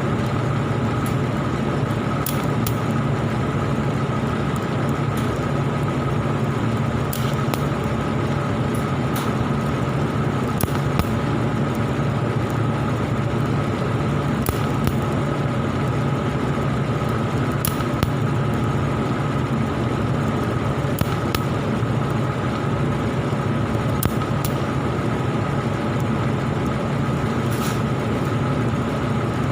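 Argon (TIG) welding: a steady electrical buzz from the arc and welding set, with scattered short sharp crackles.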